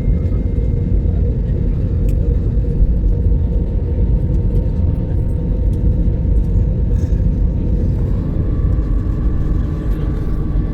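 Passenger jet cabin noise: a steady, loud rumble of engines and airflow with a faint whine that steps up in pitch about eight seconds in.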